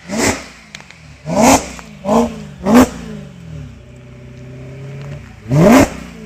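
BMW M3 E92's 4.0-litre V8 with an Akrapovič exhaust, revved while stationary. Four short, sharp throttle blips in quick succession, each rising and falling back, settle to idle, then one longer rev comes near the end.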